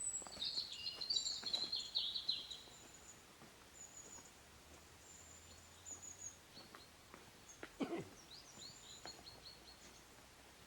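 Small songbirds singing outdoors: a quick burst of chirping twitters at the start, a fainter run of chirps near the end, and thin high whistling notes between. A single sharp knock sounds about eight seconds in.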